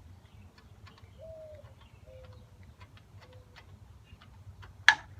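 A bird cooing softly in three drawn-out notes, each a little lower than the last, over light scattered clicks and a low hum. A single sharp click near the end is the loudest sound.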